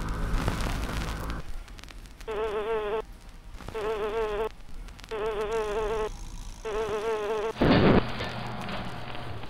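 A fly buzzing in four short, wavering bursts, each cut off abruptly. Before them comes a low hum; near the end a loud burst of noise follows.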